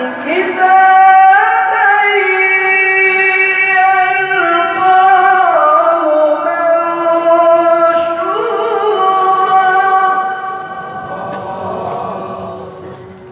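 A male qari reciting the Quran in melodic tilawah style, drawing out the words "kitaban yalqahu" in long, ornamented held notes. The voice fades away near the end.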